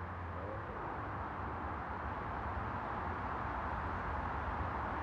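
Steady road noise from distant traffic over a low rumble, slowly growing a little louder, with no car passing close.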